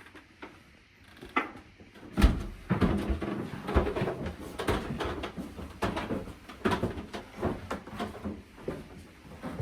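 Equipment being carried and moved about inside an old house: a heavy thump about two seconds in, then a run of irregular knocks and clatter in a small room.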